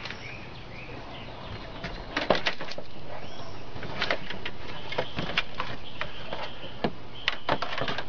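A window air conditioner being set down into a cardboard box, its casing bumping and knocking against the cardboard several times from about two seconds in. Birds chirp faintly in the background.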